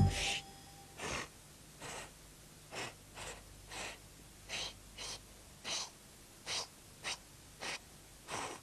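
About a dozen short, breathy puffs of air, evenly spaced at nearly two a second: a failed attempt to whistle, in which only air comes out and no note sounds.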